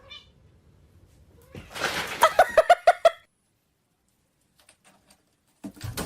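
A quick run of about eight short, clipped animal calls, one after another in just over a second, starting about a second and a half in. A new sound begins right at the end.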